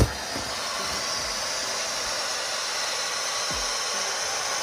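Air hissing steadily out of the open deflation valve of an inflatable air-mattress base cube as it is pressed flat by hand.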